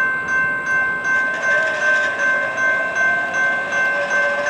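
Railroad crossing signal bell ringing in an even, fast rhythm, about three strikes a second, while the crossing gates lower for an approaching train.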